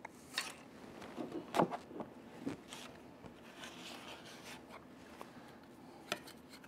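Orange plastic drafting templates being moved about and set down on paper on a tabletop: scattered light clicks and paper rustles, the sharpest knock about a second and a half in.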